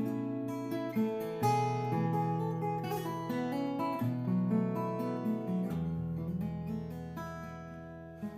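Acoustic guitar playing an instrumental passage of a traditional folk song: a plucked melody over held bass notes, with the chord changing every second or so.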